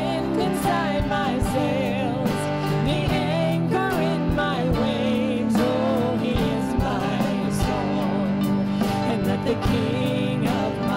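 Contemporary worship band music with steady sustained chords and a wavering melodic lead line: a passage between sung lines of a worship song.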